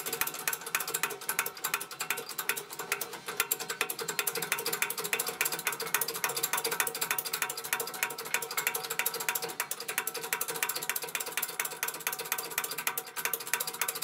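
Hydraulic shop press running as its ram is brought down onto a front lower control arm to press out the rubber bushing, with a rapid, steady clicking rattle.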